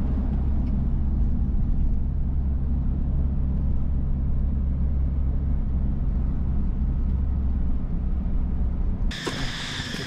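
A motor vehicle's engine running with a steady low hum that holds even throughout. It cuts off abruptly about nine seconds in.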